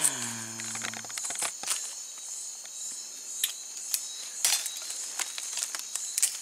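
Night forest insect chorus, a steady high-pitched buzzing trill, with scattered sharp snaps and rustles as branches and twigs are handled. A short falling voice sound comes right at the start.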